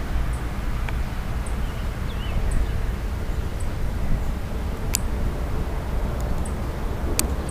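Outdoor ambience: a steady low rumble, with a faint bird chirp about two seconds in and two sharp clicks in the second half.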